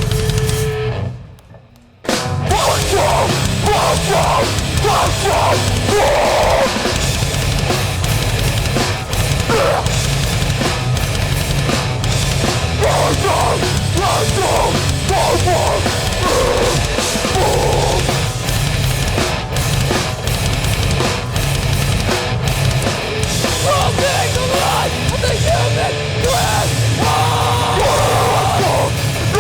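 Hardcore band playing live at full volume, with heavy distorted guitars and pounding drums. About a second in, the band stops dead for a moment, then crashes back in.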